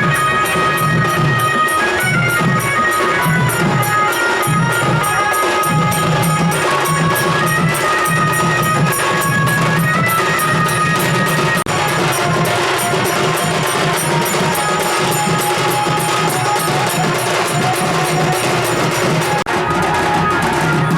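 Loud music with a steady, even percussion beat under a melody.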